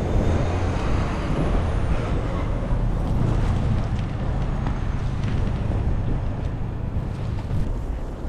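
A motor vehicle running close by in a snowy street, a steady low rumble with traffic noise.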